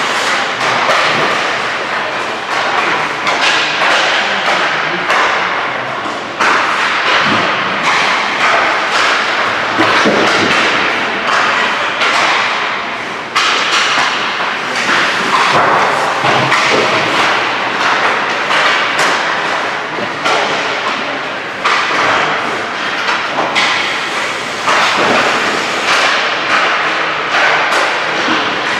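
Ice hockey play on a rink: skates scraping the ice in a continuous hiss, with repeated thuds and knocks of pucks and sticks against the boards and ice.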